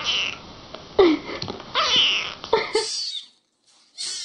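Kittens mewing: a run of about six short, high-pitched cries, some bending in pitch.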